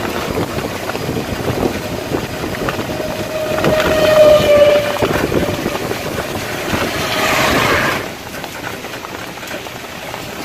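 Steady running noise of an open-sided motor vehicle on the move, with a horn held for about a second and a half near the middle, the loudest sound.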